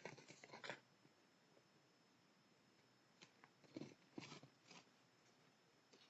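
Faint crunching in two short spells, one at the start and another about three to five seconds in: a small animal chewing food at the bird feeder.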